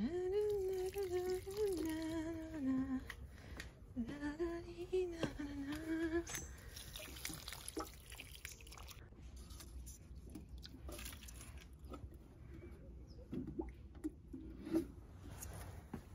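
A woman humming a tune in held notes for about the first six seconds, then the faint trickle and drip of water from a plastic watering can into plant pots.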